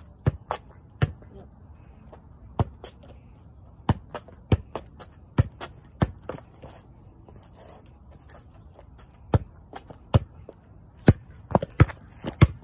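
Soccer ball being juggled: irregular thumps of the ball off a foot and bouncing on a concrete driveway, with a pause of about three seconds midway and a quick run of touches near the end.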